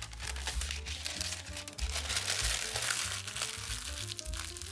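Background music with a crinkling, rustling noise over it, loudest about two to three seconds in.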